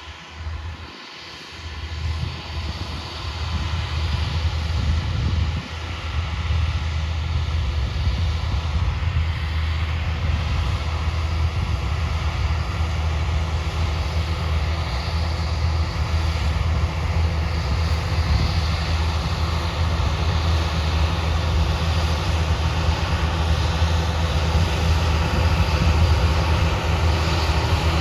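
A motor vehicle's engine running steadily with a deep rumble that builds over the first few seconds, then holds.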